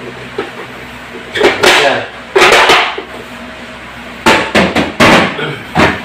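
Clear plastic refrigerator bins and drawers being handled and slid in and out, clattering and scraping in several short, loud bursts.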